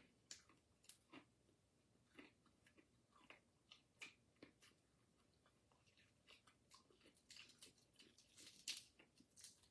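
Faint, irregular chewing and crunching of crispy fried whole red snapper, with small mouth clicks and smacks; the sounds come closer together near the end.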